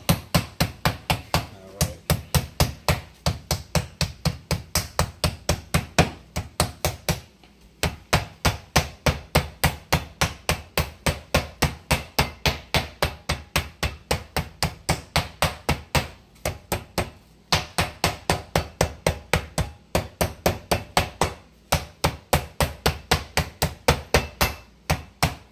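Metal meat mallet pounding chicken breasts flat through plastic wrap on a plastic cutting board: a steady run of strikes, about four a second, with a few short pauses.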